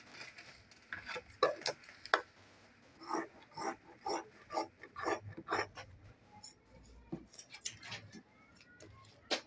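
Scissors snipping through fabric and thread: a run of short, irregular snips, then one more near the end.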